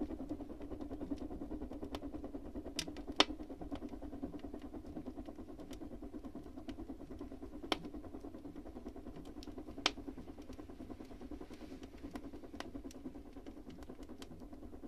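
Wood fire burning in a bathhouse stove with the lower door open: a steady, fluttering rumble of the flames drawing, with a handful of sharp crackles from the burning wood.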